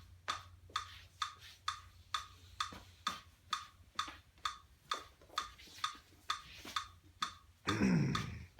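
Steady, even ticking, about two ticks a second, over a faint low hum. Near the end comes a brief, louder sound that slides down in pitch.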